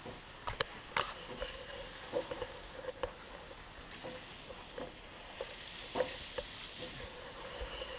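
Quiet outdoor ambience with scattered light clicks and knocks, several close together in the first second and another near the middle.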